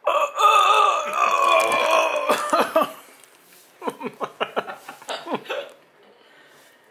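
A man lets out a long, loud burp lasting about two and a half seconds, followed by a short run of laughter.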